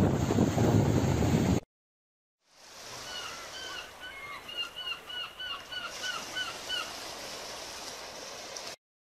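Loud wind buffeting the microphone with road noise, cut off abruptly about one and a half seconds in. After a brief silence, over a faint outdoor hiss, birds give a quick series of short calls, each bending up then down in pitch, about three a second for several seconds.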